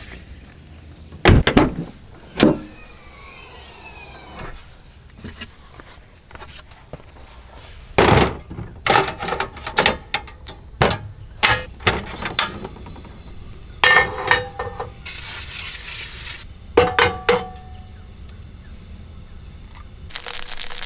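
Camp cooking gear being handled. A car door shuts with two knocks a second or two in, then comes a run of clicks, clanks and rattles as a portable butane camping stove and a frying pan are set up, with a short hiss in the middle.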